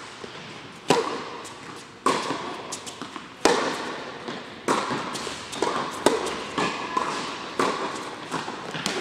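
Tennis balls struck by racquets and bouncing on a hard indoor court during a serve and rally. A sharp pop comes roughly every second and a half, each echoing in the hall, with lighter taps between.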